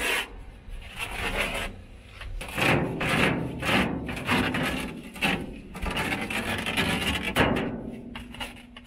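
Old cloth headliner being torn and pulled away from a truck cab roof: a string of irregular tugs, the fabric rubbing and scraping against the roof and its wire support rods.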